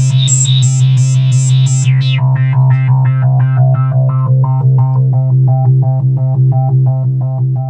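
Roland Juno-60 synthesizer playing a repeating pulsed note, three to four a second, over a steady low tone. About two seconds in, the VCF cutoff slider is pulled down: the bright sound darkens with a falling resonant sweep. The filter's resonant peak then moves up and down as the slider is worked.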